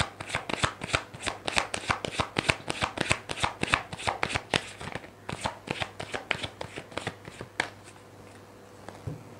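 Deck of tarot cards shuffled in the hands: a quick run of sharp card slaps, about five a second, which stops near the end.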